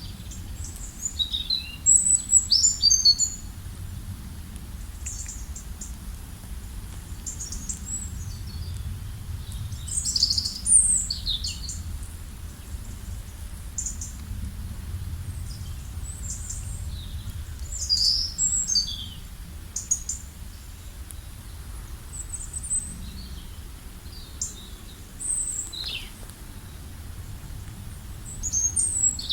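Several small birds chirping in bursts of short, high notes, busiest in a few flurries, over a steady low background rumble.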